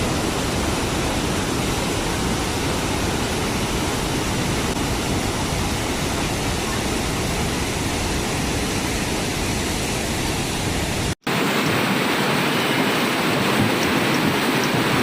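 Heavy rainstorm noise: a steady, loud roar of rain and wind with a deep rumble underneath. About eleven seconds in it cuts abruptly to a brighter hiss of pouring rain without the low rumble.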